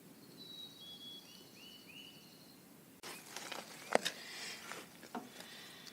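Faint bird song: a thin high whistle, then three short rising chirps. About halfway through, a sudden hiss comes in with a few sharp clicks and knocks of handling noise.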